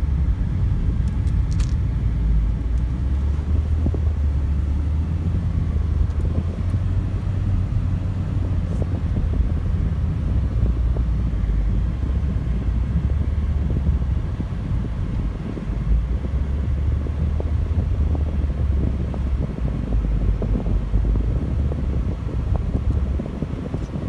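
Steady low rumble of engine and tyres, heard from inside the cabin of a car driving along a road.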